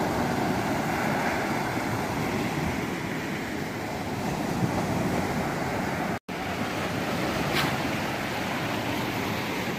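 Pacific surf breaking and washing up on a sandy beach: a steady rush of waves, which cuts out for an instant a little past the middle.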